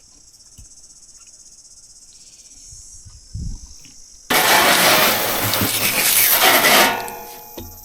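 Insects chirping steadily for about four seconds. Then, suddenly, a loud, rough crunching noise takes over and fades near the end.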